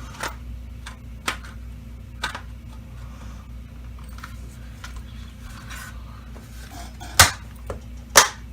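Hard plastic parts of a Dyson DC25 vacuum being fitted together: a few light clicks, then two loud sharp snaps about a second apart near the end as the parts click into place.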